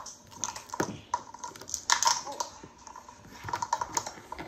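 Small plastic action figures clacking and knocking against each other in a play fight: scattered sharp clicks, a few at a time, about a second apart.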